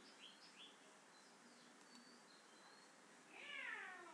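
Near silence with a few faint bird chirps in the background, then near the end a louder sound that slides down in pitch.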